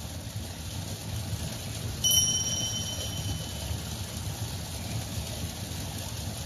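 A single bright chime about two seconds in, ringing at two clear pitches and fading over about a second and a half, over a steady low rumble of outdoor background.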